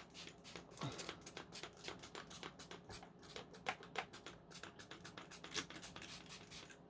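Faint quick clicks and scratches, several a second, of the Dyson V10's plastic housing being handled while cleaner is put inside it.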